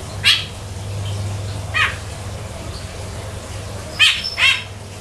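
Short, high animal calls, each sliding down in pitch: four of them, the last two close together near the end, over a steady low hum.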